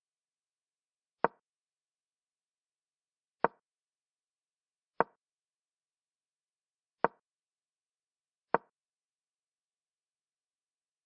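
Chess app move sounds: a short wooden clack of a piece being set down on the board, five times at uneven intervals, one for each move played in the replay.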